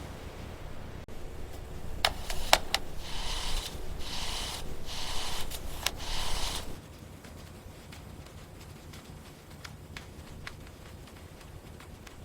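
Hand work in a workshop: a few sharp clicks, then four scraping or rubbing strokes of about a second each. After them, faint light ticks.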